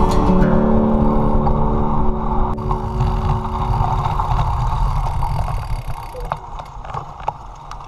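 Steady wind rush and road rumble on a road bike's handlebar-mounted action camera while riding, under the last held chords of background guitar music, which end about halfway through. The rush then drops away as the bike rolls slowly and more quietly.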